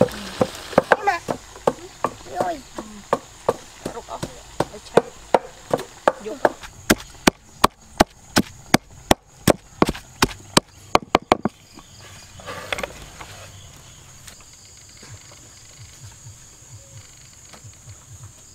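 A knife chopping on a wooden board, about two to three sharp strikes a second, stopping about twelve seconds in. After that a steady high insect drone goes on.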